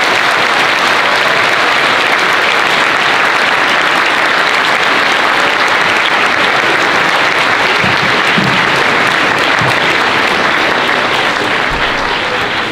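A large audience of school pupils applauding, steady and loud, easing off slightly near the end.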